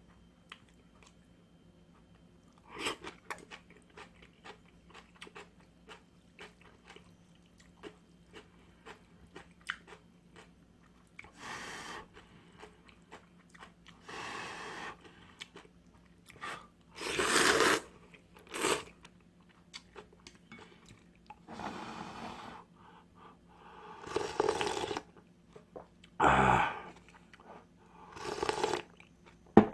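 Close-miked eating of Samyang ramyun noodles: soft chewing clicks at first, then a run of louder slurps and chews about every two to three seconds, the loudest about 17 seconds in.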